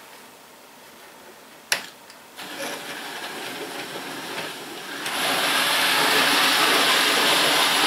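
00 gauge model locomotive hauling a rake of trucks along the track: its small electric motor whirring and the wheels rattling on the rails. A sharp click comes a little under two seconds in, the running starts just after, and it gets louder about five seconds in as the controller is wound up.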